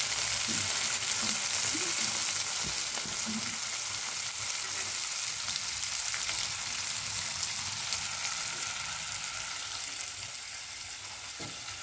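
Butter boiling in a pot, sizzling and crackling steadily at the frothy stage when its water content is cooking off on the way to ghee. The sizzle fades a little toward the end.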